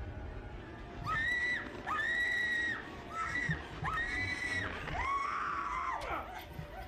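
A young woman screaming in terror in a horror film's soundtrack: about five long, high-pitched screams one after another, the last one lower and the longest.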